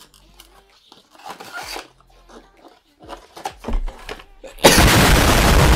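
Paper wrapping and a small cardboard box rustling and knocking as they are handled. Near the end, a sudden loud burst of harsh, hissing noise that stops abruptly.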